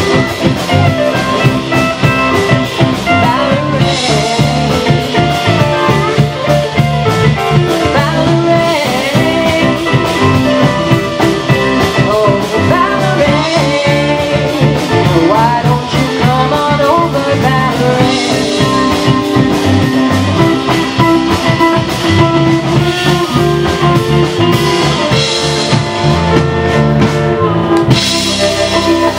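Live blues-rock band playing: electric guitar, acoustic guitar and drum kit, with a woman singing.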